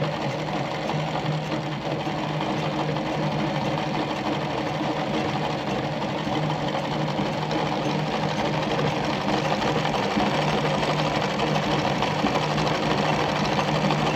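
Treadle-driven Singer 319K zigzag sewing machine running steadily, sewing a decorative pattern set by a disc cam.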